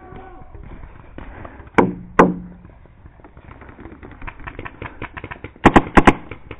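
Paintball marker firing close to the microphone: two sharp pops about two seconds in, then a quick string of four near the end, with fainter pops of other markers in between.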